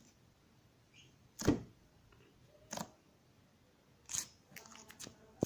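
Slime being squeezed and pressed by hand, giving sharp pops and clicks: a loud one about one and a half seconds in, others near three and four seconds, and a quick run of small clicks near the end.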